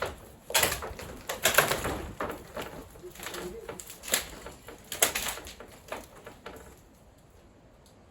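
An irregular series of sharp knocks and cracks, about seven in six seconds, then fading out: the wooden pergola timbers being broken and knocked apart during demolition.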